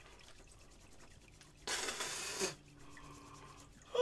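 A short, forceful breath hissed out through the mouth, about a second and a half in and lasting under a second, from a man whose mouth is burning from a Carolina Reaper pepper.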